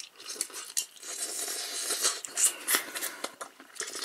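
Close-up eating sounds of a person sipping broth and chewing pufferfish from clear pufferfish soup, with a few sharp clicks in the second half.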